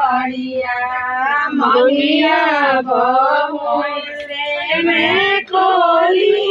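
Women singing a Bhojpuri wedding folk song in long, held melodic phrases. Only voices are heard, with no instruments or beat.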